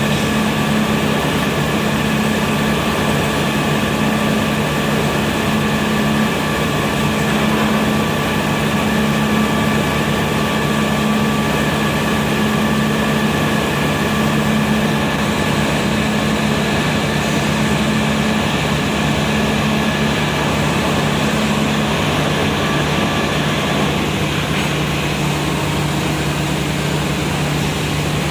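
Industrial furnace running with a steady, loud mechanical drone: a low hum with a fainter higher whine on top, the whine fading near the end.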